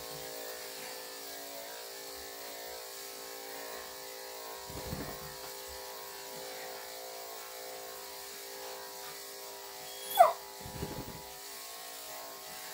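Corded electric dog clippers with a 3/4-inch blade running with a steady hum as they shear through a puppy's fluffy coat. About ten seconds in comes a brief, loud squeal that falls in pitch.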